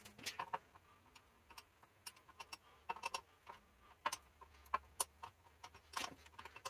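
Faint, irregular light clicks and ticks, a few a second, from a wrench and metal pedal parts being handled while a bicycle pedal is tightened onto its crank.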